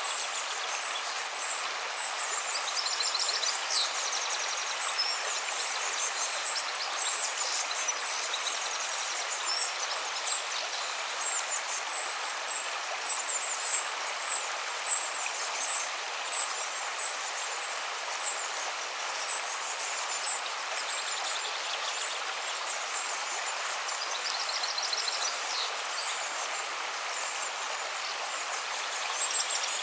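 River water rushing steadily, with small birds chirping high above it throughout. Quick rattling bird trills come about three seconds in and again near the end.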